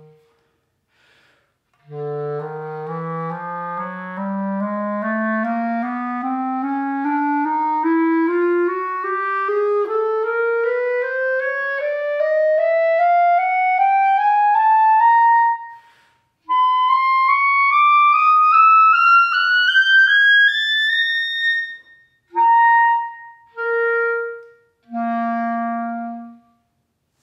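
Yamaha CSVR-ASP B-flat clarinet playing a scale that climbs note by note from the bottom of its range to a very high note, with a brief break about two thirds of the way up. It then plays three short notes, each an octave below the last.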